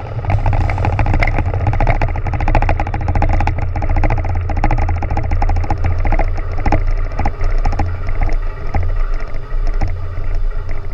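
Loud, rough rumble of a large underwater explosive charge detonating at sea in a ship shock trial. It sets in suddenly at the blast and stays loud with dense crackling throughout, over a steady low hum.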